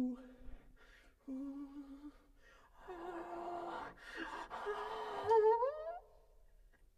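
Bass trombone played softly in a free improvisation: a few short held low notes, then a breathy, airy note that slides upward and stops about six seconds in.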